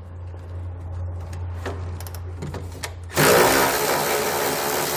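Milwaukee cordless ratchet with a low hum at first, then running loudly about three seconds in, spinning off the 15 mm nut that holds the truck's factory rear jounce bumper.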